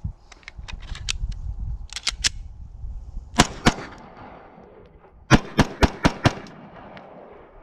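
Glock 17 9mm pistol firing a string of about seven to nine shots in uneven groups, a pair near the middle and a quicker run of five later on, as a water-soaked magazine is fired through to check that it still feeds.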